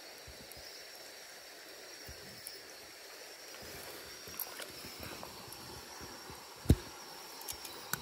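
River water running steadily, with small splashes and clicks, and one sharp knock about two-thirds of the way through.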